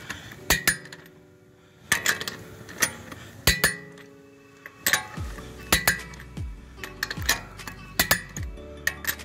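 Click-type torque wrench on an extension torquing wheel lug nuts: repeated sharp metallic clicks with a short ring, irregular, one to three a second. Each click marks a nut reaching the wrench's setting of 94 ft-lb.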